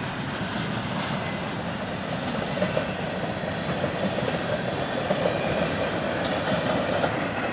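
Freight train cars carrying empty truck trailers rolling steadily past on the rails, a continuous wheel-and-rail rumble and rattle.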